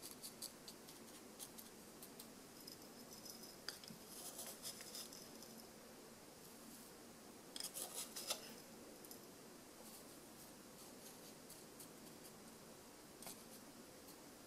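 Dry loose tea being scooped with a wooden spoon and poured from one glass jar into a small glass jar: faint crisp rustling and light clicks against the glass. Short spells of rattling come about four seconds in and again about eight seconds in, the second the loudest.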